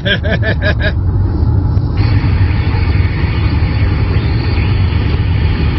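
Steady low rumble of a vehicle on the road, heard from inside the cabin. The hiss of the CB radio's open channel sets in about two seconds in.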